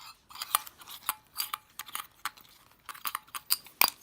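A Pokémon Poké Ball tin being opened and its contents handled: irregular sharp clicks, clinks and crinkles of the metal tin and the foil card packs.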